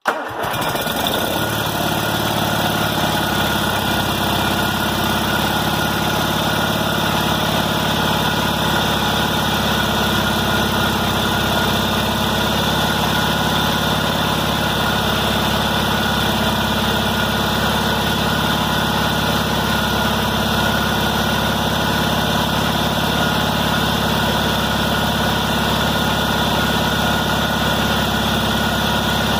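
Kohler M18 twin-cylinder engine on a Cub Cadet 1882 garden tractor catching right away on a little choke, then running steadily and evenly. The engine is cold.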